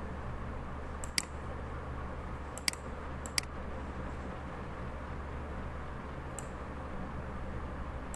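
Computer mouse clicks: four short, sharp clicks spaced one to three seconds apart, the last one fainter. A steady low hum and hiss runs underneath.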